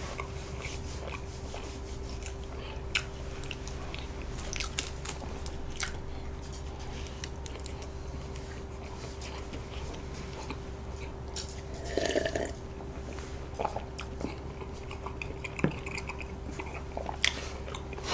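Close-miked chewing of a soboro bun, a sweet bread with a crumbly streusel topping: soft bites, small crunches and many short mouth clicks, over a faint steady hum.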